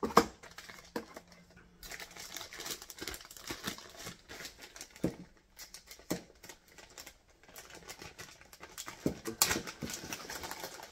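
Clear plastic packaging bag crinkling and crackling as hands open it and work a part out, in irregular clicks and rustles, with a sharp tap just after the start.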